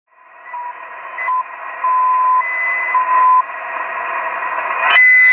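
Shortwave radio receiver hissing with narrow, band-limited static, as heard in sideband mode. Plain steady tones at two pitches, one about twice the other, come and go several times over it. The loudest tone comes near the end.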